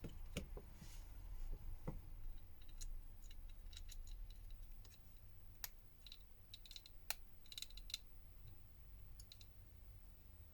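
Scattered small, faint clicks and light taps of hand tools and small smartphone parts being handled during a repair, with a cluster of quick ticks about two thirds of the way through, over a faint low hum.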